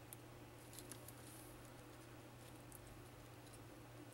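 Near silence: a steady low hum, with a few faint light clicks of a small plastic wiring connector and transducer being handled on an automatic-transmission valve body.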